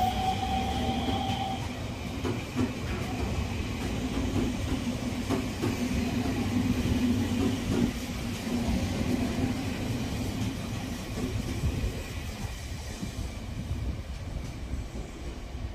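Odakyu Line electric train running along the platform, with a rising whine in the first second or two, then steady running noise with wheels clicking over rail joints.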